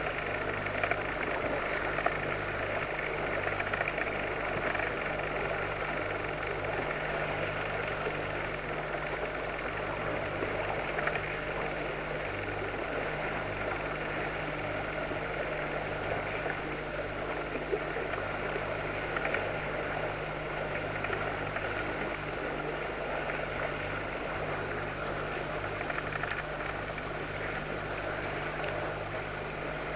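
Outboard motor of an inflatable boat running steadily at trolling speed, with water rushing past the hull.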